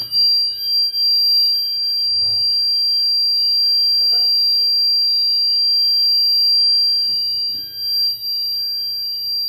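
Fire alarm system in alarm on a Zeta Smart Connect panel: a steady high-pitched tone with a second, lower tone pulsing on and off about once a second. The panel is in fire condition from a test-activated loop device, with its sounders active.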